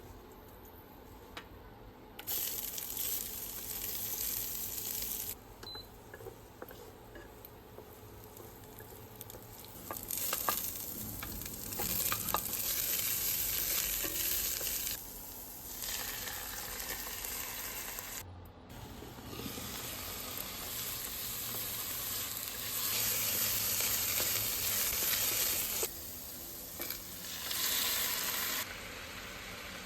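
Spinach stir-frying in a pan, sizzling in stretches of a few seconds that start and stop, with a few clicks of a utensil against the pan.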